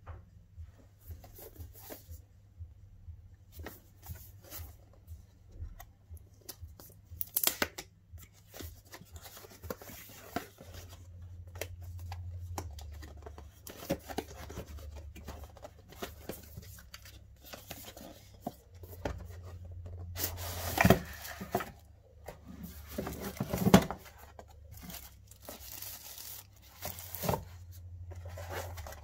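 Cardboard product box being handled and opened by hand: card rubbing and sliding, paper tearing and rustling as the inner tray and inserts come out, with a few louder sharp knocks scattered through.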